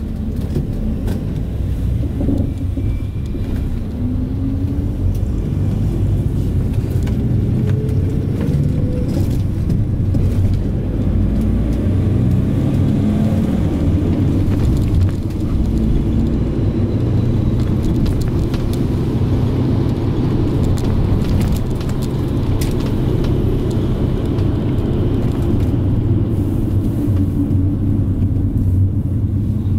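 Minibus engine and road noise heard from inside the cabin while driving: the engine note rises as the bus accelerates over the first several seconds, then settles into a steady low drone.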